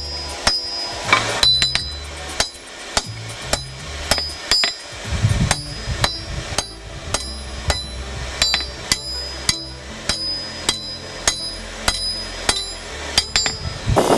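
Hammer blows on steel at an anvil in a steady rhythm, about two to three strikes a second, each with a bright metallic ring: blacksmith's hammer work on a crossguard.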